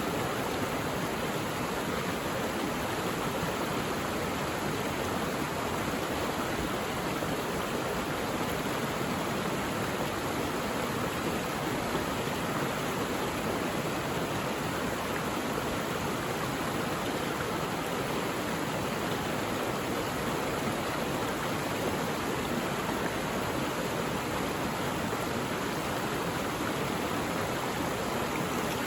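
Mountain valley stream rushing, a steady, unbroken wash of running water.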